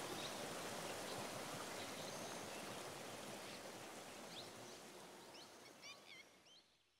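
Steady rush of water over stream rocks, fading out gradually. From about four seconds in, a bird gives a run of short, quick chirps.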